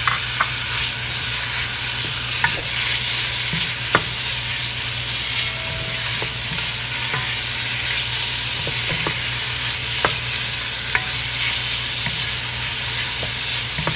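Raw beef strips sizzling in hot oil with sautéed onion, garlic and ginger in a stainless steel pot as they start to brown, stirred with a wooden spoon that clicks against the pot every second or two.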